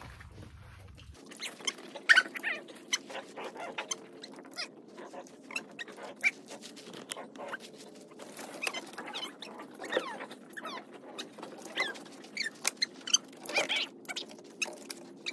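A dog whimpering in short, high squeaks, among scattered light clicks and taps.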